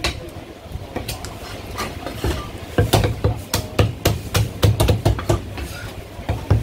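Chinese cleaver chopping a cooked Tsamkong chicken on a thick round wooden chopping block, each stroke a sharp knock with a dull thud from the block. A few spaced chops come first, then from about three seconds in a quick steady run of about three or four chops a second.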